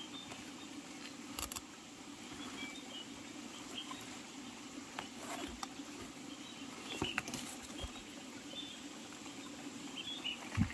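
Faint rustling and scattered crackles of dry leaves and twigs being stepped on and handled, with a few faint high chirps in the background.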